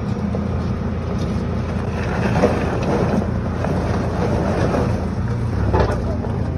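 A farm loader's diesel engine running under load as it tows a stuck electric forklift across loose stone on a strap, its note strengthening near the end. Stones crunch under the wheels about two seconds in and again near the end.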